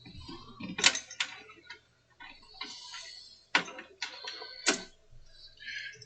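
Light clicks and taps of small metal and plastic computer parts being handled and fitted onto a motherboard, with soft rustling between; the clicks come singly, about five of them.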